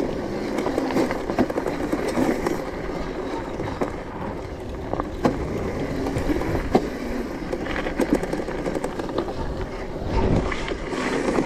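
Razor MX650 electric dirt bike being ridden: steady motor and chain-drive noise, with scattered knocks and rattles as it rolls over rutted ground.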